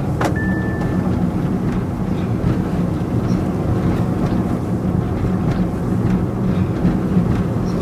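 Steady rumble of a moving car heard from inside the cabin: engine and road noise. A short high beep sounds about half a second in.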